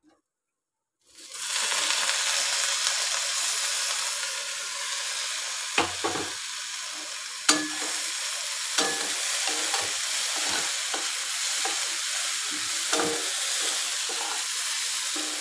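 Chopped okra sizzling in a metal kadai while a spatula stirs it, with a few knocks of the spatula against the pan. The sizzling starts about a second in.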